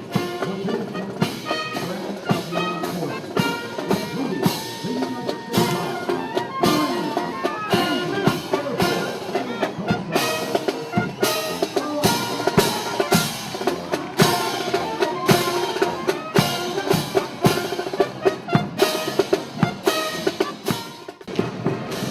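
Brass band music with drums playing a steady beat of about two strokes a second.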